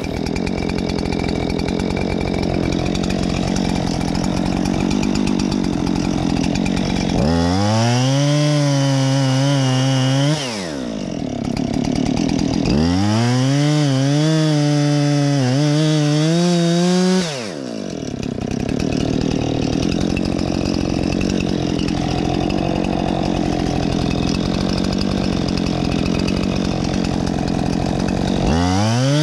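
Husqvarna 576XP two-stroke chainsaw running at high throttle as it cuts into a poplar trunk. The engine note drops briefly about ten seconds in and again at about seventeen seconds, then climbs back up.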